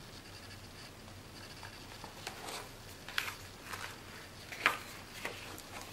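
Faint handling of an open picture book, with a few soft paper rustles and taps as a page is turned. The loudest comes a little under five seconds in.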